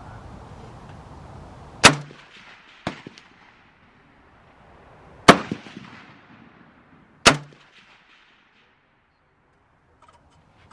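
Three single rifle shots spaced a few seconds apart, each with a short echo, and a fainter crack about a second after the first.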